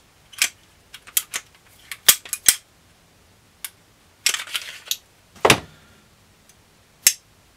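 Sharp clicks and clacks of an S&W SD9VE pistol slide and its recoil spring, guide rod and Glock barrel being handled and taken apart, with a short metallic rattle about four seconds in and a heavier clack at about five and a half seconds.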